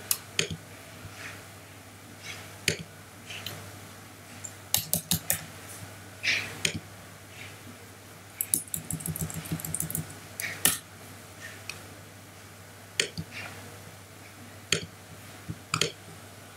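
Computer keyboard keystrokes and mouse clicks: scattered single clicks, with two quick runs of typing, one about five seconds in and a longer one around nine to ten seconds, over a faint low hum.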